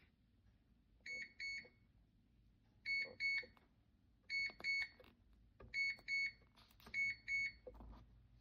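Electronic beeper of a small biometric pistol safe sounding five double beeps, a pair about every one and a half seconds, each beep short and high.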